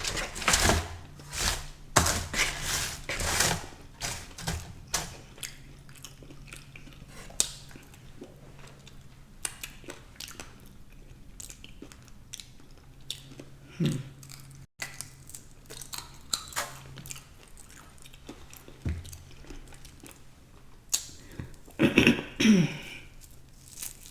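A person chewing and biting into chicken wings close to the microphone, with quick clicking mouth sounds that are busiest in the first few seconds and then come sparser. A short pitched hum slides down in pitch near the end.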